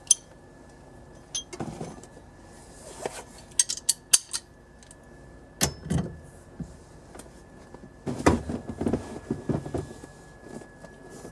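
Metal tools clicking and knocking irregularly while the steering-column nut holding the quick-release hub is tightened by hand, with a sharp click at the start and bursts of rattling near the middle and end.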